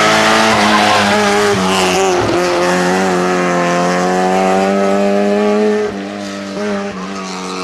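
Rally car engine at high revs, holding a gear and climbing slowly in pitch, with a brief lift about two seconds in. Near the end it drops away, quieter, broken by short gaps of gear changes.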